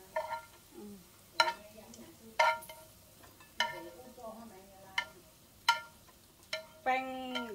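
A metal utensil clinking against a cooking pot about seven times at uneven intervals, each strike ringing briefly at the same pitches.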